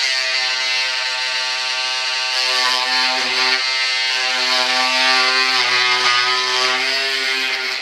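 Handheld rotary tool running steadily at high speed, cutting a slot into a model jet's wing; its whine dips in pitch a little now and then as the bit bites.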